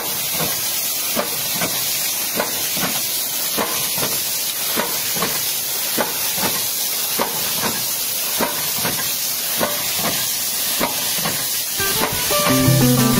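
Large hydraulic ram pump running: its bank of spring-loaded waste valves snap shut in a steady rhythm, about two and a half clicks a second, over the constant hiss of water spraying out of the valves. Each click is a pumping stroke. Guitar music comes in near the end.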